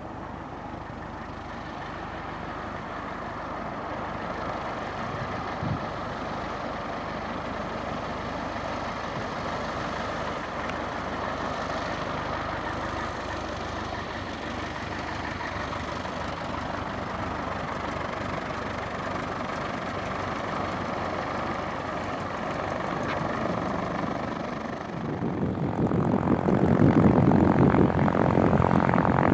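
A propeller aircraft's engine running, its drone growing slowly louder, then much louder and fuller about 25 seconds in as the plane comes close.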